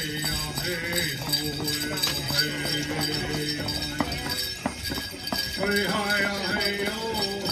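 Powwow singing, with voices holding long notes, over the continuous jingling of metal bells and jingles on dancers' regalia.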